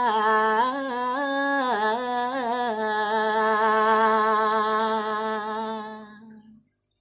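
A woman singing Balinese pupuh Ginada solo, without accompaniment: a melody with ornamented turns, then a long held note that fades away and ends about six and a half seconds in.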